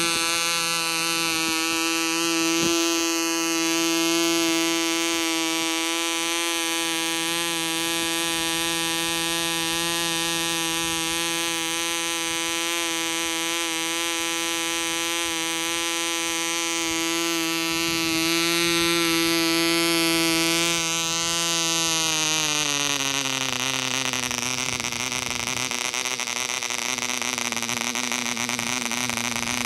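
Taipan 1.00 cc two-stroke model diesel engine running steadily at high speed, turning a propeller with a high-pitched drone. About three-quarters of the way through, the compression screw is turned and the pitch slides smoothly down as the engine slows and settles at a lower speed.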